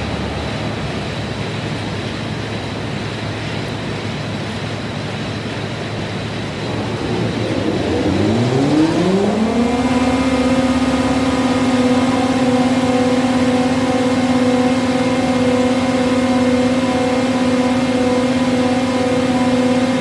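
Four-sided planer (moulder) over a steady rush of workshop machinery; about 8 seconds in, its cutter-head motors spin up in a rising whine and settle into a steady high hum running at speed.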